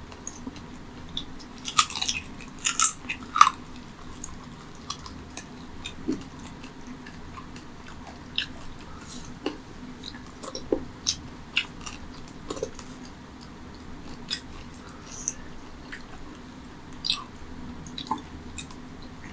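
Close-miked chewing as a man eats mutton curry by hand, with scattered sharp wet clicks from the mouth, a cluster of louder ones about two to three seconds in.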